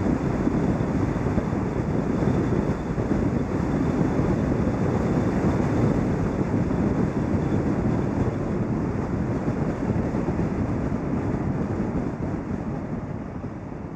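Steady wind and road noise of a car driving, picked up by an outside camera. It fades slowly over the last few seconds.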